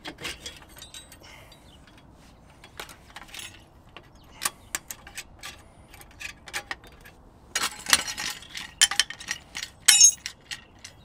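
Metal clinks and clicks of rear drum-brake springs and hardware being worked off the backing plate with pliers. The taps are scattered, with a quick run of clinks about three quarters through and a ringing metal clink near the end.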